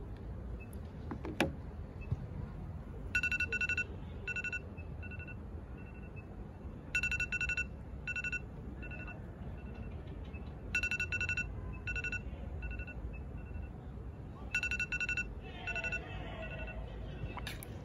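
Smartphone alarm tone beeping in a repeating pattern: a quick run of beeps, then a few single beeps, starting about three seconds in and recurring roughly every four seconds. A single sharp click comes about a second and a half in.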